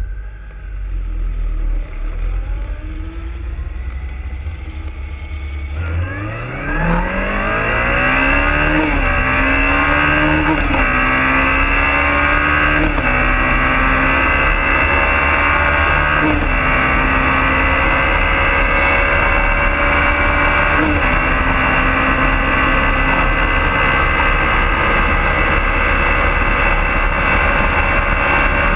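BMW motorcycle engine at speed: about six seconds in its note rises steeply as it accelerates hard, then holds steady at high revs with a few brief dips. A dense rushing noise runs under it throughout.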